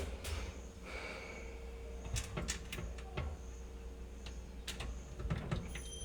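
Scattered light clicks and taps of small mounting screws and a hard disk being handled in an open metal NVR case, over a faint steady hum.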